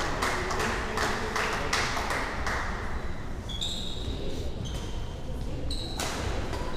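Badminton play in a sports hall: a quick, even run of racket-on-shuttlecock hits, about three a second, stopping about two and a half seconds in, then short shoe squeaks on the wooden floor. Voices in the hall underneath.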